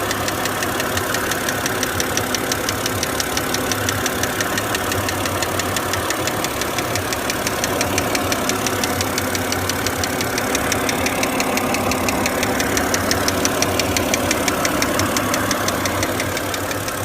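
BMW engine running with a rapid, even knocking tick over the engine note, the engine knock that the owner is recording.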